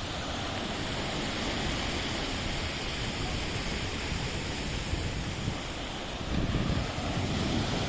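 Rough sea surf washing on the shore as a steady rush, with wind buffeting the microphone, heavier from about six seconds in.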